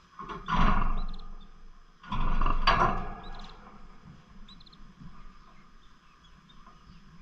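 Pet lovebirds: two loud noisy bursts about two seconds apart, with a few faint, short high chirps between them.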